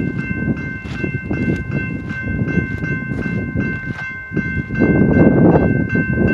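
Railroad grade crossing bells ringing steadily, about three strokes a second, warning of an approaching train as the gate arms come down. Under them a low rumble grows louder about five seconds in.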